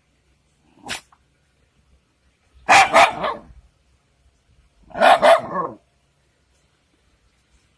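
Shiba Inu barking at a cat: two loud bouts of a few quick barks each, about two seconds apart, after one short, quieter sound about a second in.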